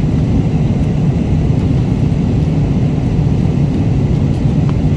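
Steady cabin noise of an airliner in flight: a constant low rumble with a hiss above it, and a faint click near the end.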